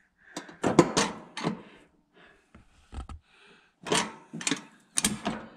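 Craftsman lawn tractor's deck-height lever being worked by hand in its slot, giving a string of sharp metal clicks and clunks as it drops into the notches freshly cut in the steel plate.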